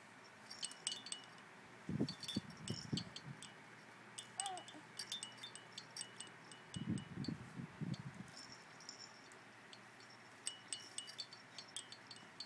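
Small jingle bells in a baby's plush toy jingling in quick bursts as the toy is shaken, with two louder muffled bumps of the toy being handled about two and seven seconds in.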